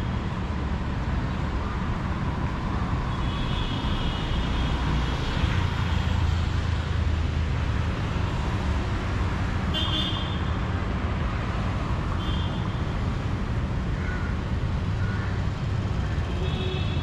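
Urban road traffic: a steady rumble of passing vehicles, with short car-horn toots four times, the first a little longer.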